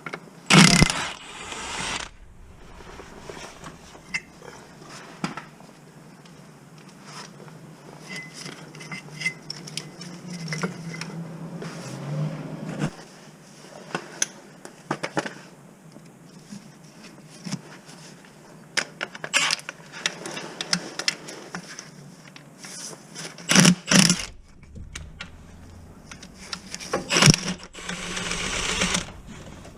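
Intermittent clanks, knocks and scrapes of tools and metal parts during clutch work on a van, with a few louder bursts of noise.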